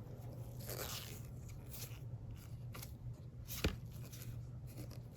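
Faint rustling of trading-card packs and cards being handled, with one sharp click about three and a half seconds in, over a steady low hum.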